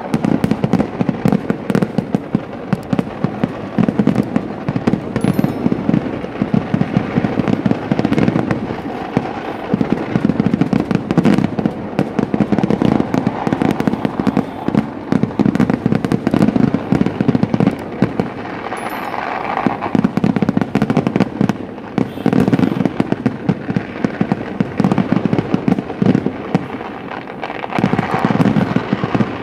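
Kerala temple-festival fireworks (vedikkettu) in a massive barrage: loud explosions following one another so fast that they merge into an almost unbroken, rapid crackling and banging.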